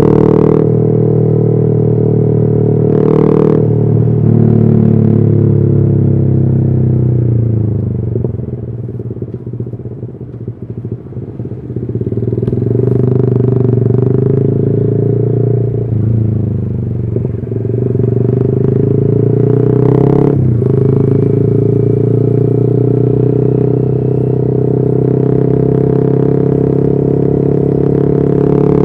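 Yamaha R15 V3's 155 cc single-cylinder engine through a custom exhaust while the bike is ridden. The engine note sinks and quietens as the throttle is closed a few seconds in, climbs again about halfway through, and then holds a steady note with a couple of brief dips.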